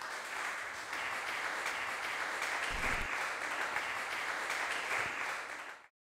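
Audience applauding steadily, a dense patter of many hands clapping, cut off abruptly near the end.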